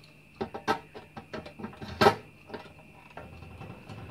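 Irregular light clicks and knocks of metal parts and hand tools being handled on a workbench, with one sharper knock about two seconds in.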